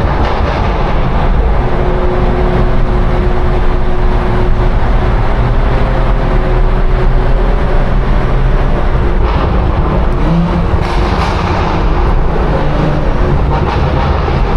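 BMW 340i's turbocharged straight-six and exhaust running at a steady cruise inside a tunnel, the engine drone and tyre and road noise echoing off the tunnel walls.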